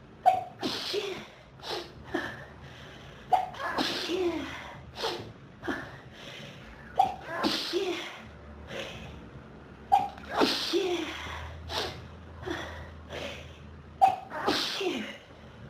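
A person sneezing over and over in an allergic sneezing fit set off by dust in the nose. There are five loud sneezes about three to four seconds apart, with shorter, quieter sounds between them.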